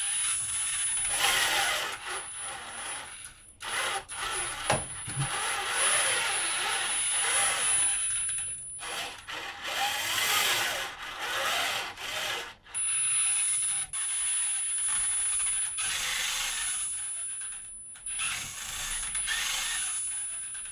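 DC motors of a 3D-printed robot arm whirring in bursts as the arm follows a hand-turned potentiometer, with a whine that rises and falls in pitch as the motors speed up and slow down. The motors stop and start several times, and a thin, steady, very high-pitched tone runs through much of it.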